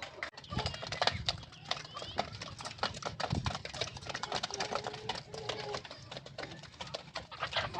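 Rhode Island Red hens and chicks calling, with short clucks and cheeps over many rapid, irregular taps and clicks.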